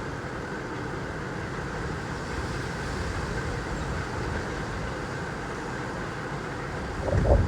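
Storm wind blowing steadily and rumbling on the microphone, with a stronger gust buffeting it near the end.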